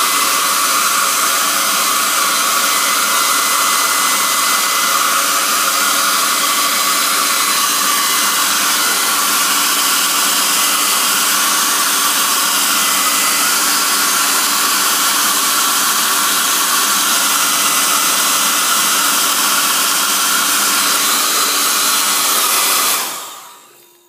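Small handheld hair dryer running on its high setting, a steady loud rushing of air with a faint motor hum. It is switched off near the end and dies away over about a second.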